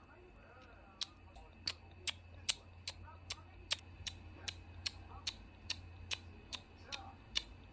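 A series of sharp, evenly spaced clicks, about two and a half a second, starting about a second in.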